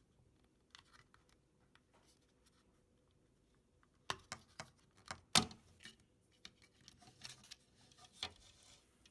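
Small plastic clicks and light scraping as the lift is eased out of the side of a 1970 Hot Wheels Tune-Up Tower elevator, sparse at first, then a cluster of clicks from about four seconds in with one sharper click just after five seconds.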